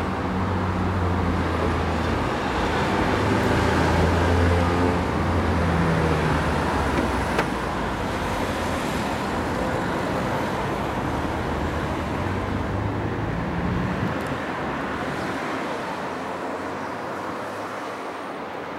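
Road traffic: a steady stream of cars and lorries passing, engines and tyre noise, with a low engine drone that fades out about fourteen seconds in.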